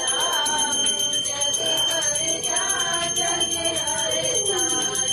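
A small puja hand bell rung continuously for an aarti, its quick strikes blending into a steady high ringing, while women's voices sing a devotional melody.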